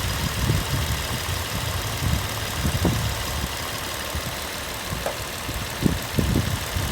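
Volvo XC90 engine idling, a steady low running sound with a hiss across the range and a few faint knocks.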